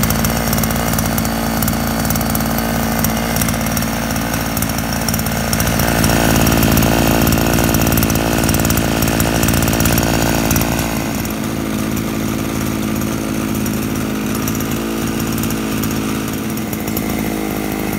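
49cc two-stroke scooter engine idling as it warms up after its first cold start of the season. It runs faster for a few seconds from about six seconds in, then settles back to idle.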